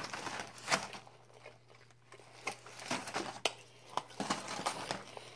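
Scattered clicks, crinkling and rustling of food, paper plates and aluminium foil takeout pans being handled on a table.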